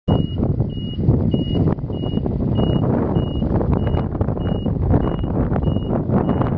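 Vehicle reverse warning beeper sounding a single high beep about every 0.6 s, eleven beeps that grow gradually fainter, over a steady low rumble.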